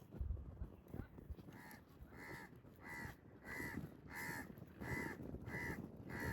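A crow cawing in a steady series, about eight harsh caws a little over half a second apart, starting about a second and a half in.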